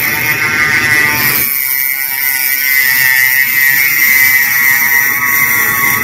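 Small cordless NeuMaster rotary tool running at a mid speed with a steady, high whine as its rotary file grinds metal out of the inside of an HY H17 spindle connector. The tone shifts about a second and a half in.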